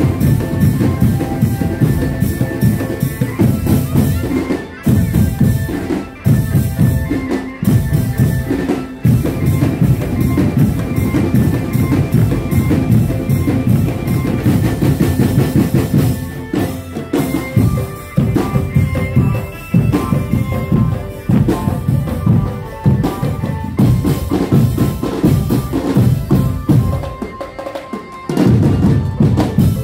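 Drumband playing a fast beat on bass and snare drums with a melody line over it. The music drops out briefly near the end and then comes back in.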